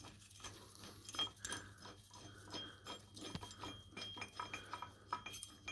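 Faint, irregular metal clinks and taps as a nut is turned off a bolt by hand and the steel side plate of a Fordson Major drawbar assembly is worked loose.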